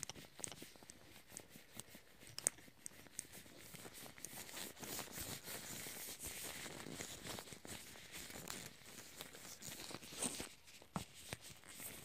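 Close-miked handling sounds: scattered soft clicks and ticks, with a stretch of faint rustling in the middle and a few sharper ticks near the end.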